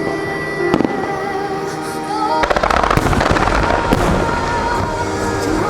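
Aerial fireworks of a musical starmine bursting over the show's music. About two and a half seconds in, a dense rapid barrage of reports sets in with a deep boom underneath.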